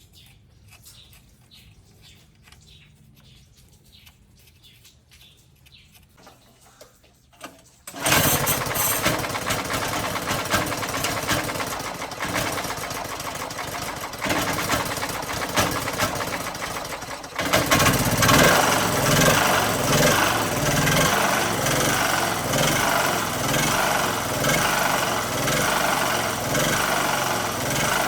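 Faint ticking, then a small portable generator engine starts abruptly about a third of the way in and keeps running; about two thirds through it gets louder, with a rhythmic pulsing in its low note.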